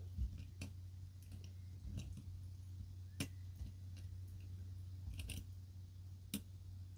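Lock pick and tension wrench working the pin stack of a five-pin Yale Eaton padlock: scattered faint metal clicks and scrapes in the keyway, over a steady low hum.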